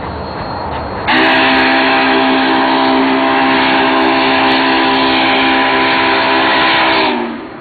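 Union Pacific 844's steam whistle blowing one long chord of several tones for about six seconds, starting sharply and sagging slightly in pitch as it shuts off. The train's steady rumble runs under it.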